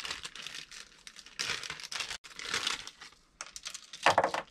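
Plastic parts bag crinkling and rustling as it is handled, in irregular bursts, with the loudest rustle about four seconds in.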